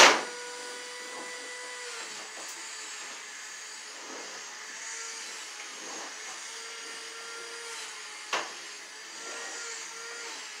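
Two sharp knocks while yellow electrical cable is being fastened along wooden wall studs: a loud one at the very start and a smaller one about eight seconds in, over a steady faint hum.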